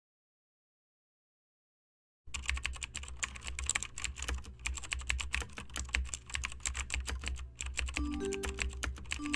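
About two seconds of silence, then a keyboard-typing sound effect: a fast, continuous run of key clicks over a low hum. A few music notes come in near the end.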